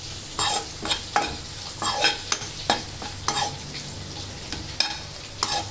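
A steel spoon scraping and stirring squid fry with coriander leaves in a non-stick kadai, in uneven strokes about two a second, some with a short metallic ring. The food sizzles lightly underneath.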